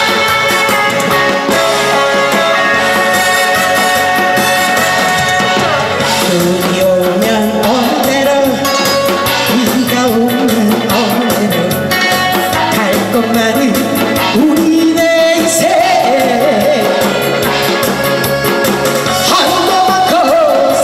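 A woman sings a Korean trot song into a microphone over loud amplified backing music. The backing runs on its own at first, and her voice comes in about six seconds in.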